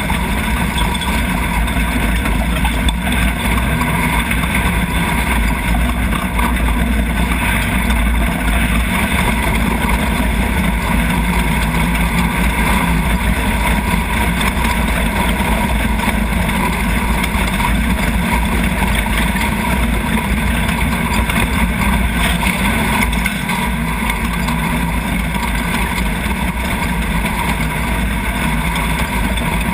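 Nissan VQ35 3.5-litre V6 of a Chenowth off-road racing buggy running hard at race pace, heard onboard, with a steady, loud mix of engine and wind noise.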